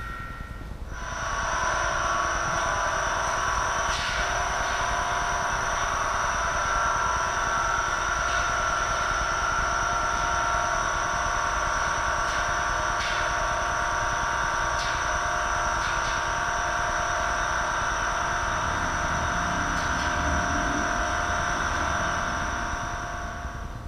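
Steady factory machinery noise with several constant whining tones, and a few faint clicks. It starts about a second in and stops just before the end.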